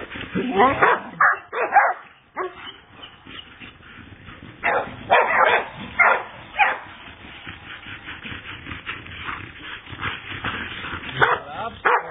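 Young Australian shepherd barking and yipping in short groups of calls, some with a whining rise and fall, with a quieter stretch in the middle.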